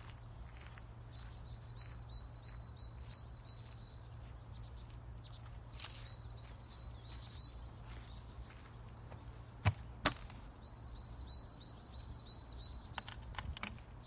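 Footsteps on a dirt forest path, with small birds chirping high and repeatedly over a steady low hum. Two sharp clicks come close together a little under ten seconds in, and they are the loudest sounds.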